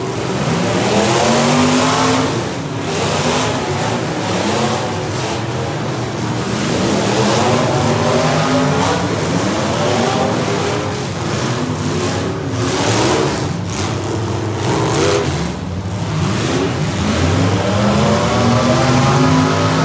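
Several demolition derby cars' engines revving hard and easing off over and over, their pitches rising and falling and overlapping.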